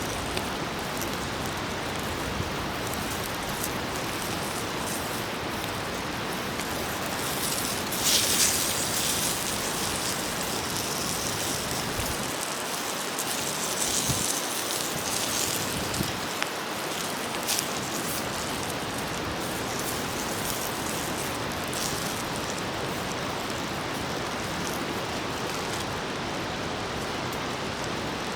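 Food sizzling on an iron griddle over a campfire, a steady hiss that flares louder about eight seconds in, with a few small ticks and pops.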